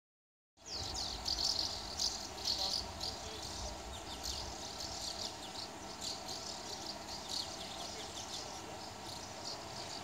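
A flock of small birds flying overhead, giving many overlapping high, shrill calls that fall in pitch. The calls begin about half a second in and continue densely throughout.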